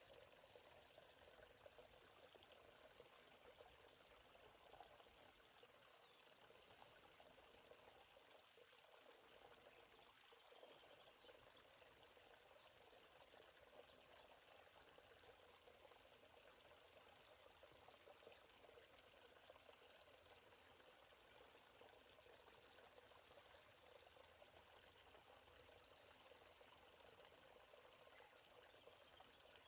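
Steady, high-pitched, continuous chorus of insects, with the faint murmur of a forest stream beneath it.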